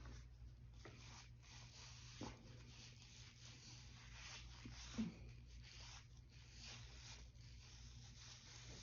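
Faint rubbing of a makeup wipe over facial skin in repeated soft strokes, over a low steady hum, with a soft thump about five seconds in.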